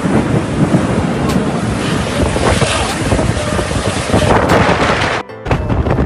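Storm wind gusting hard and buffeting the phone's microphone, with driving rain, in a loud continuous rush and rumble. It drops out briefly about five seconds in, then carries on.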